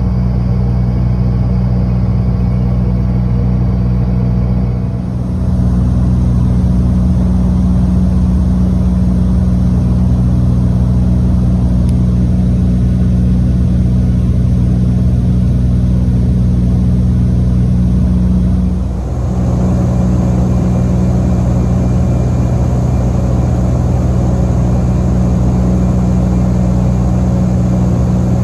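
Steady low drone of a Dash 8-Q200's Pratt & Whitney PW123 turboprop engines and propellers at cruise, heard inside the cabin, with a hum of several low steady tones. It dips briefly twice.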